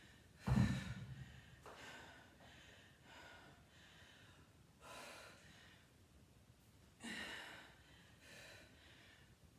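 Pair of dumbbells set down on a rubber gym floor with a thud about half a second in, then a woman breathing out hard several times between sets.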